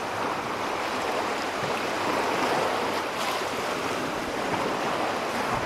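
Small waves washing in over pebbles and rocks at the water's edge, a steady rush of moving shallow water around wading feet.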